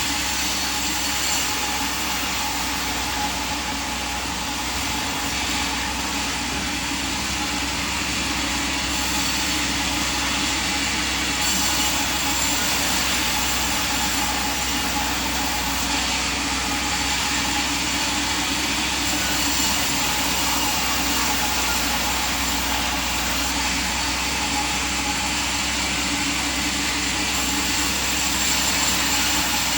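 A machine running steadily: an even hiss with a few steady tones, and no cuts or changes in load.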